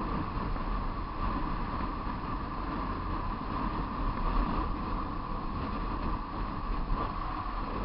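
Motorcycle riding downhill at speed: steady wind rushing over the microphone, with the engine and tyre noise running underneath.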